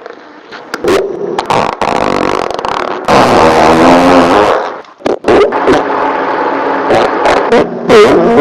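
A string of farts: a few short ones in the first three seconds, then a long rippling fart lasting about a second and a half, then more farts broken by sharp pops after a short gap.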